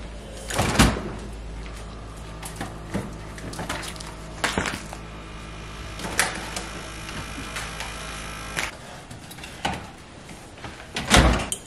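Refrigerator door opened and food packages taken off the shelves and set down: a handful of knocks and thuds, the loudest near the end. Under them a steady low hum that stops about eight and a half seconds in.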